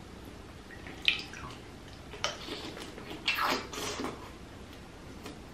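Close-miked wet eating sounds of a tiger prawn soaked in butter sauce: sauce dripping, then the prawn being bitten and sucked. There are a few short, sharp wet sounds about a second apart through the middle.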